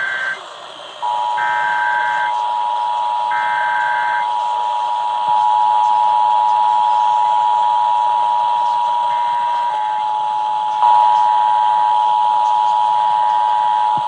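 Emergency Alert System Required Monthly Test: three short, raspy bursts of SAME header data tones in the first few seconds, then the EAS two-tone attention signal, a steady harsh two-pitch tone held from about a second in to the end. Near the end, fainter header bursts from another relaying station overlap the tone.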